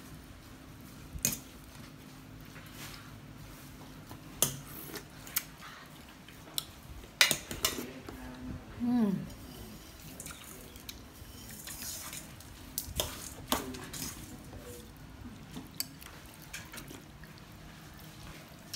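Metal spoon clinking and scraping against a ceramic soup bowl, in scattered sharp clinks every second or so, as noodle soup is eaten.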